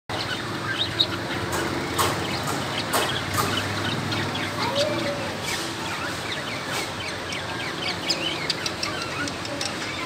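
Several cockatiels chirping and chattering, with many short high chirps overlapping throughout. A few sharp clicks come in the first few seconds, the loudest about a second in.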